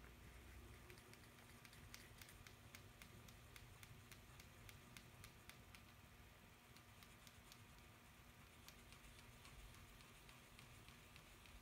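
Faint, quick ticking and scratching of a black crayon pressed hard onto paper while filling in small spots, several light taps a second, thinning out in the second half.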